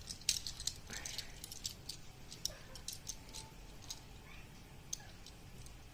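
Small cardboard box and plastic packaging of Tomica die-cast toy cars being handled: a run of crisp clicks and crackles, thick over the first few seconds, then scattered.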